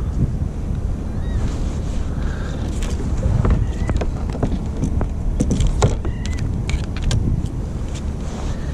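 Wind buffeting the microphone on an open kayak at sea, a steady low rumble, with a run of sharp knocks and clicks from about three to seven seconds in and a few faint, short, high chirps.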